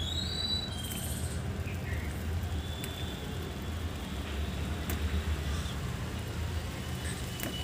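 Steady low background rumble. A few faint high chirps sound near the start, and a few soft clicks come later.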